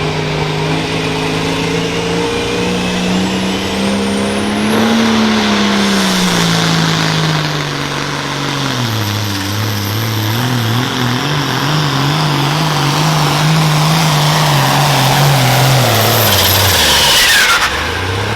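Super farm tractor's turbocharged diesel engine at full throttle pulling a weight sled, its pitch climbing, sagging and recovering under load, then falling away as it is throttled back near the end.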